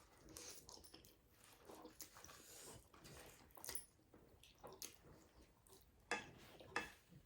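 Faint close-up eating sounds: chewing and wet mouth noises, with two sharper clicks a little after six seconds and just before seven seconds.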